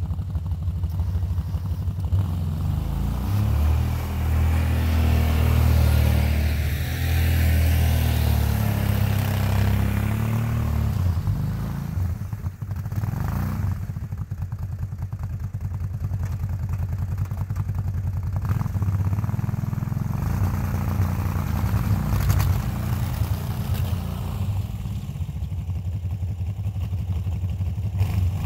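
Engine of a freshly rebuilt Kawasaki Brute Force 750 ATV, a V-twin, running while the quad plows snow, its engine speed rising and falling as the rider works the throttle.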